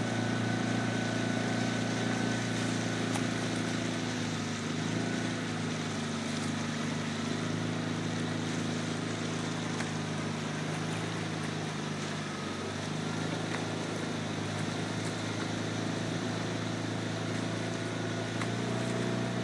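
Outboard motor of a small following boat running steadily at a constant speed, a low even hum.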